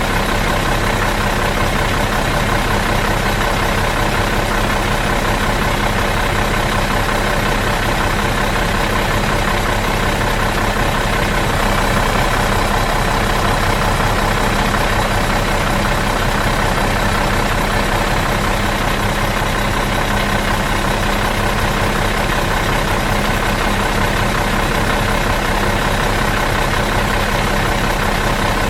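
Bus engine idling steadily in neutral, an even, unchanging run with no revving.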